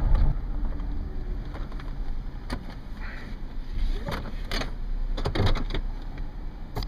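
Low steady outdoor rumble of wind on the microphone and distant road traffic, with a few brief clicks and knocks scattered through it.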